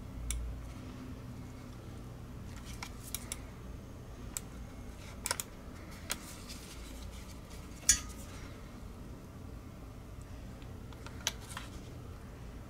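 Light, scattered clicks and taps of a metal tweezer tool against the plastic underside of a Logitech G Pro X Superlight mouse while its feet are fitted, about a dozen in all, the loudest about eight seconds in.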